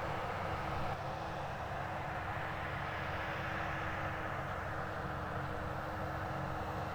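Fendt 936 tractor's six-cylinder diesel running steadily under load while pulling an eight-furrow plough through the soil, with a steady whine over the engine note.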